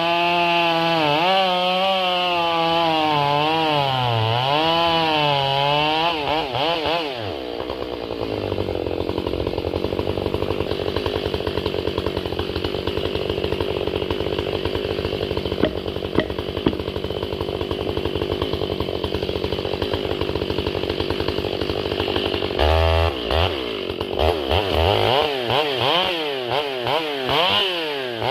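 Stihl 661 C two-stroke chainsaw at high revs, its pitch wavering for several seconds, then dropping to a low steady idle. Near the end it is revved up and down several times.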